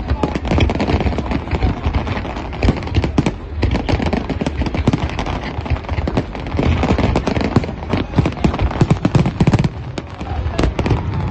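Fireworks display: a dense, unbroken barrage of bangs and crackling from many shells bursting together.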